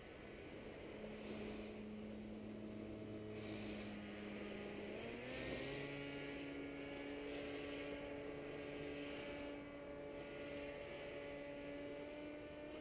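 Distant paramotor engine and propeller droning steadily overhead. Its pitch rises about five seconds in and then holds.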